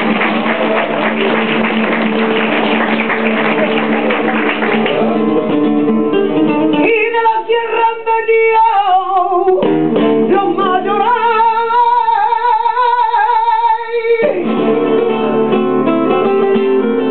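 Live flamenco: two Spanish guitars strumming fast and dense, then a woman's flamenco singing comes in about five seconds in, one long wavering, ornamented line that carries mostly alone for several seconds before the guitars fill in again near the end.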